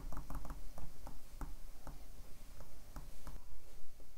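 Stylus writing on a tablet: a run of small taps and scrapes, several a second, that stop about three and a half seconds in. A steady low hum lies underneath.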